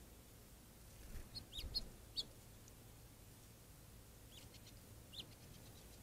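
Small birds chirping: a few short, high calls about a second in and again near the end, over a faint low rumble.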